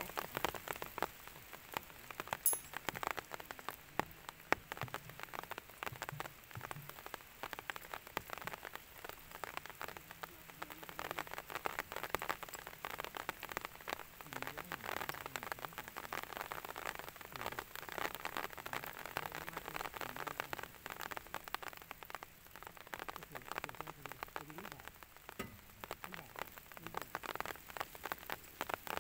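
Steady rain falling, with many separate drops striking close by in a dense, uneven run of sharp ticks over a constant hiss.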